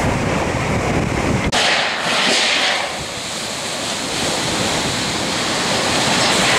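Hurricane wind rushing steadily, with gusts buffeting the microphone in a low rumble. About a second and a half in the sound changes abruptly to a brighter, hissing rush.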